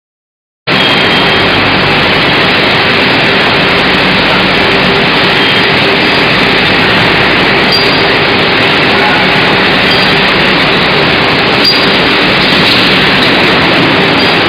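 CNC shaft induction hardening machine running: a loud, steady machine noise with a low hum underneath, cutting in abruptly less than a second in.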